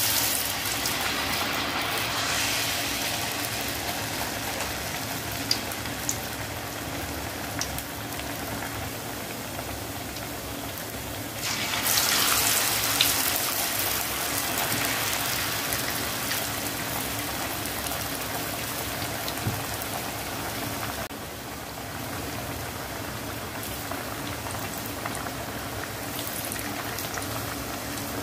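Batter-coated raw banana slices (valakkai bajji) deep-frying in hot oil: a steady sizzle and crackling bubble of the oil around the batter. The sizzle swells louder about twelve seconds in and eases a little about twenty-one seconds in.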